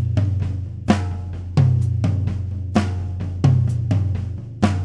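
Drum kit playing a beat, heard through only the snare and tom close microphones: sharp snare and tom strikes about every half to one second, with the toms' low ringing carrying on between hits.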